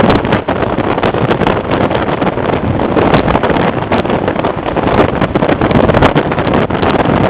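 Steady rush of wind and road noise from a car driving at speed, with wind buffeting the microphone.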